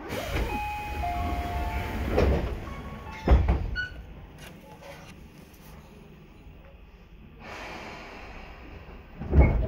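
Tobu 10030 series electric train running, heard from inside the car: a low rumble of wheels on rail, with brief high squeals in the first two seconds. Heavy knocks come about two and three seconds in and again near the end, with a quieter stretch between.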